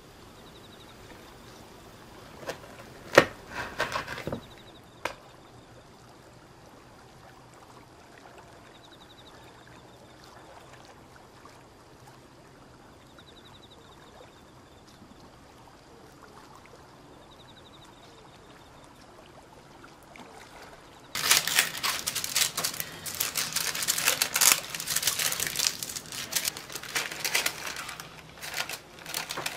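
Baking paper crinkling and rustling loudly as it is pressed into a pound cake tin, starting about two-thirds of the way in. Earlier, a few sharp taps as a knife cuts down through a mousse cake onto a wooden board, followed by a long stretch of faint room tone.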